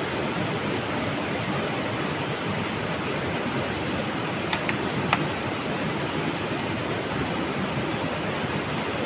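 Steady rush of a rocky river flowing over and around boulders, with two or three light clicks about halfway through.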